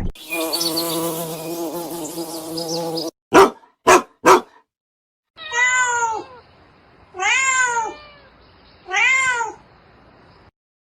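A domestic cat meowing three times, each call rising then falling in pitch, about a second and a half apart. Before the meows come a steady buzzing hum lasting about three seconds and three sharp clicks.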